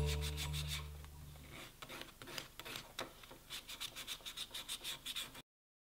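A small wenge wedge sanded by hand, rubbed back and forth on a sheet of sandpaper on the workbench: quick scratchy strokes, about four a second, starting about two seconds in as background music fades out, and cutting off suddenly near the end.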